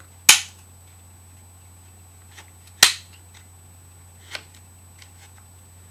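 Collapsible adjustable stock of a BT TM-15 paintball marker being slid between its lock positions, clicking as it latches. There are two sharp clicks about two and a half seconds apart, then a fainter one.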